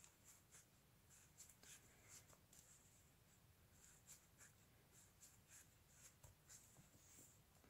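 Faint, irregular soft rustles and scratches of a size 5 crochet hook drawing plush chenille yarn through stitches while crocheting by hand, over near silence.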